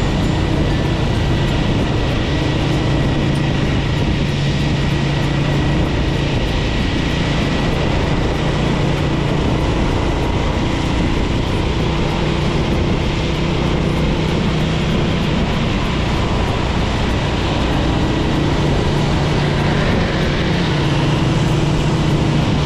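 Small motorbike riding in traffic: a steady engine drone with road and wind noise, the engine note shifting slightly with speed.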